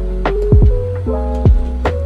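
Background music: held keyboard-like chords over a deep kick drum beat, with the kicks landing in quick pairs.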